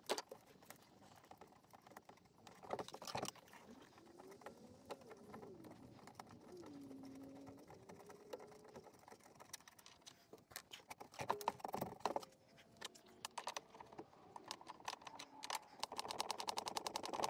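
Wrench work on a headlight-pod nut: a few scattered clicks and knocks of metal tools, then a fast, even run of ratchet clicks near the end.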